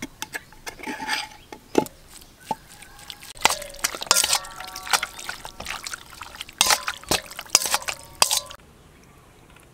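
Pork pieces being stirred through a wet marinade in a metal bowl: sloppy squelching and dripping, with a metal spoon knocking and scraping against the bowl. The bowl rings briefly in two clusters. The sound cuts off abruptly near the end.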